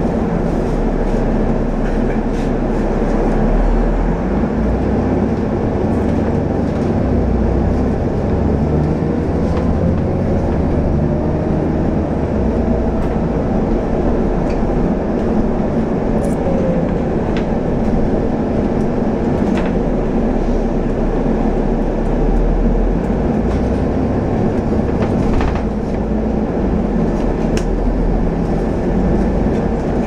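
Ride noise inside a moving double-decker bus: a steady engine and road rumble, with a faint whine that rises and falls and a few sharp rattles from the body.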